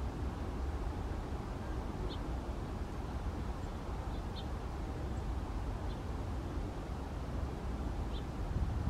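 Steady low outdoor rumble, with about five faint, short, high bird chips scattered through it.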